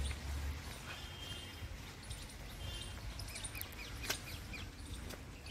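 Birds chirping and trilling in the background, with a low rumble in the first half-second and a single sharp click about four seconds in.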